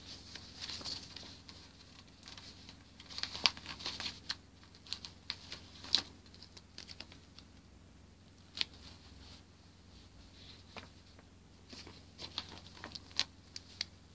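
Paper sticker sheet and tissue rustling and crinkling, with scattered small clicks and taps as a sticker is peeled off and pressed down.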